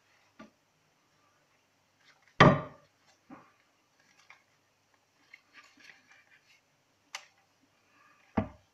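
A DSLR camera with a tripod mounting plate handled and set down on a wooden desk: several knocks, the loudest about two and a half seconds in, a sharp click about seven seconds in, and light handling rustle between.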